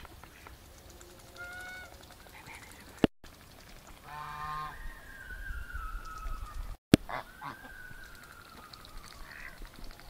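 Domestic geese honking and mallard ducks calling, some calls drawn out and falling in pitch. Two sharp clicks with brief dropouts, about three and seven seconds in, are artefacts of the phone recording.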